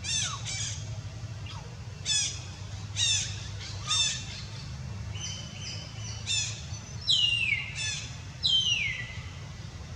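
Infant macaque giving repeated high-pitched calls, about nine in all, spaced irregularly. The last two are longer and loudest and slide down in pitch.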